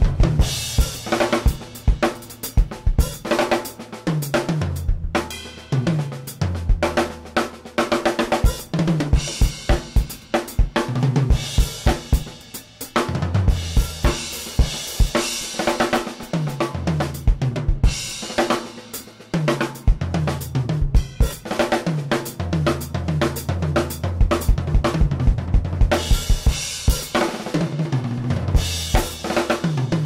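Acoustic drum kit played continuously: a Pearl Export kit with a Tama Melody Master snare and Zildjian K Custom cymbals, bass drum, snare, hi-hat and cymbals together, with several fills that step down the toms from high to low. The kit is close-miked and heard raw, with no gate or EQ.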